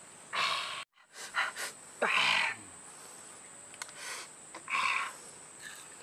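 A man's short, breathy gasps and exhalations, about five in a row, with a brief cut to silence just under a second in.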